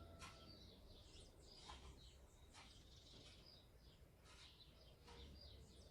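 House sparrows chirping faintly, in short scattered chirps.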